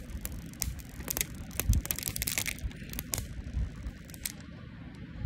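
Thin plastic protective film crinkling and crackling as it is peeled off the back of a phone in a clear case, with scattered sharp clicks and a denser crackle about two seconds in, over a low rumble of hands handling the phone.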